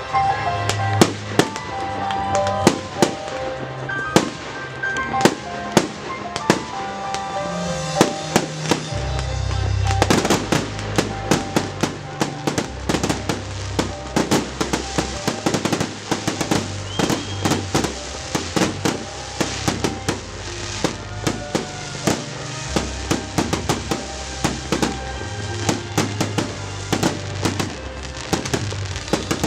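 Fireworks display set to music: aerial shells bang and crackle in quick succession, many reports a second, over loud music whose heavy bass comes in about nine seconds in, after which the bangs come thicker.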